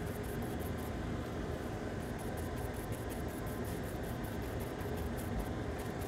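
Steady even hiss of machine noise, like a fan running, with no distinct events.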